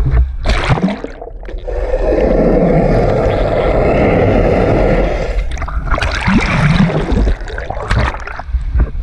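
Sea water splashing and gurgling around a camera dipped in and out of the water. A steady muffled rush takes over for a few seconds in the middle while it is submerged, and splashing returns near the end.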